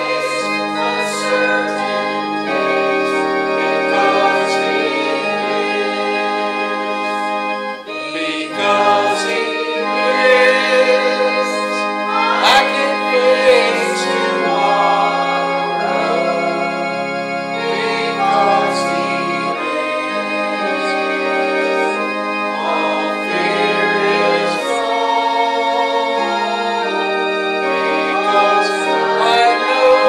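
A hymn sung to organ accompaniment: held organ chords with voices singing over them, the singing stronger from about a third of the way in.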